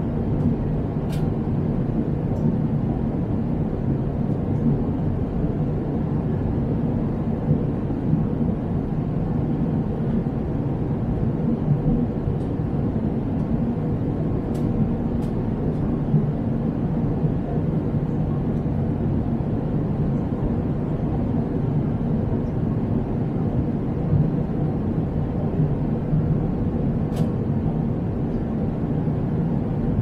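Airliner cabin noise at cruise, beside the wing's turbofan engine: a steady low rush of engine and airflow with a faint steady hum. A few faint ticks come through it.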